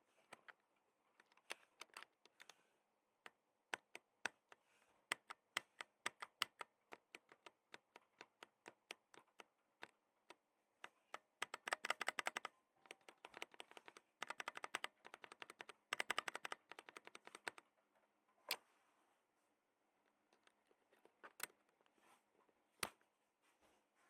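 NextTime Blue Star linear mechanical keyboard switches being pressed and released, each stroke a sharp clack. Single presses come first, then two fast rattling runs of typing, then a few more single presses.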